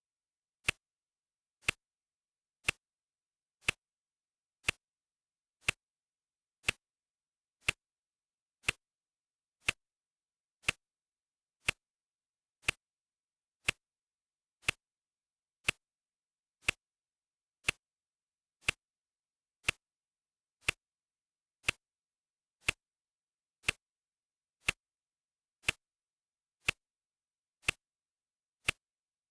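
Clock ticking steadily, one sharp, dry tick per second.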